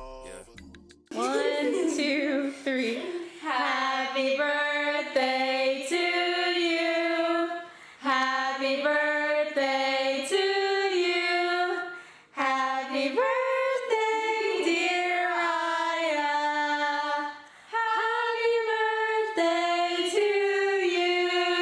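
Unaccompanied female singing: slow phrases of long held notes, four phrases in all, with short breaks between them.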